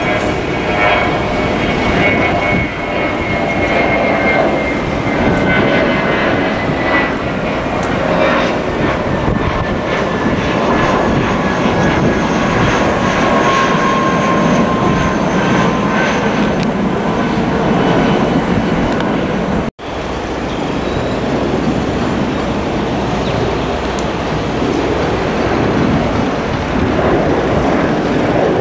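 Jet engines of a Jetstar Airbus A320 airliner climbing out after takeoff: a loud, steady jet noise with whining tones that slide slowly down in pitch as it passes. There is a sudden dropout just before twenty seconds in. Then the steady jet noise of a second twin-jet airliner climbing out.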